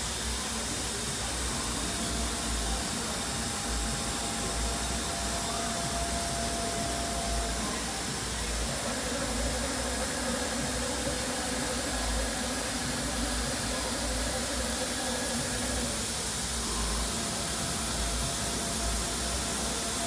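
MultiCam MG-series CNC router running: a steady rushing hiss of the spindle and its dust-collection vacuum, with a thin high whine and faint hums that shift pitch a few times.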